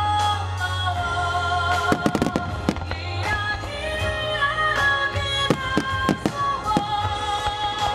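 Aerial fireworks bursting with sharp cracks, seven or so over several seconds, over music with long held melodic notes.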